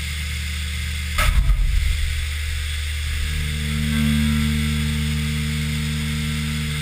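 Haas VF-3SS CNC vertical mill cutting aluminium under flood coolant: a steady machine and spindle hum with several low tones under the hiss of coolant spray. A brief, louder burst of noise comes a little over a second in.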